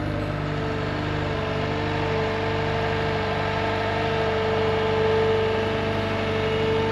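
Vehicle engine running steadily, its pitch and loudness rising slightly in the middle.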